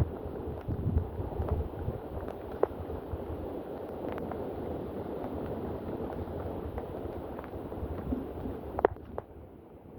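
Storm wind buffeting the microphone over a steady wash of rain, with the gusts strongest in the first second. Scattered faint ticks run through it, and a sharper click comes near the end.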